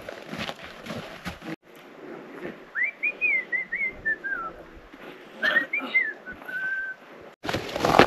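Footsteps crunching on a snowy trail, then two short phrases of clear whistled notes that glide up and down, the second ending on one held note. Loud footsteps crunching in snow come back near the end.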